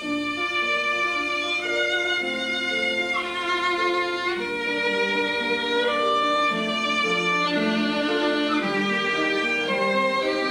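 A student violinist playing a slow melody of long held notes. The phrase starts over right at the beginning on the teacher's request to play it again.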